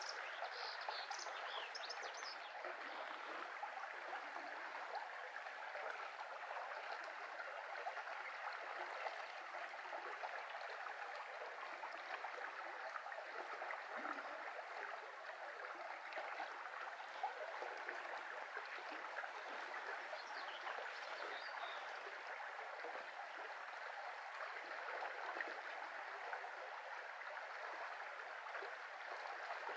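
Shallow brook flowing steadily, an even rushing and babbling of water. A few faint high chirps come through near the start and again about two-thirds of the way in.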